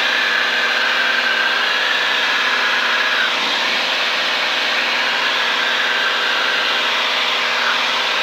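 Steady drone of a small single-engine propeller plane's engine and propeller in cruise, heard from inside the cockpit.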